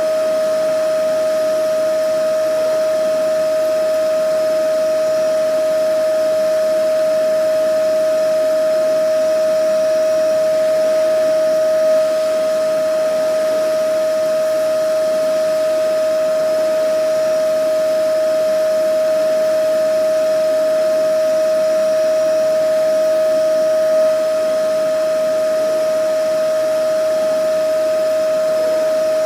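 Vacuum cleaner running steadily: a constant motor whine over the rush of air, with a slight bump in level about every twelve seconds.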